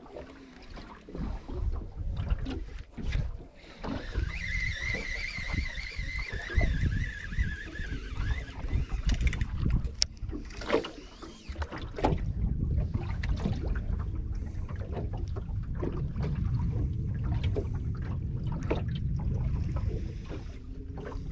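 Water lapping and slapping against a small drifting boat's hull, with wind on the microphone and scattered knocks from handling the rod. A thin wavering whine runs for about four seconds, starting about four seconds in.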